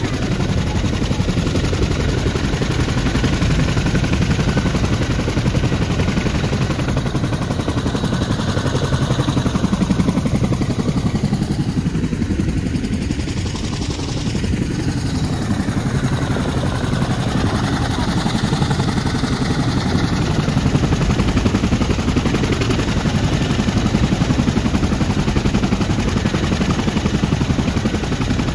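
Boeing CH-47 Chinook twin-turboshaft, tandem-rotor helicopter running on the ground with its rotors turning: a loud, steady, rapid blade chop over a deep engine rumble, a little quieter for a moment around the middle.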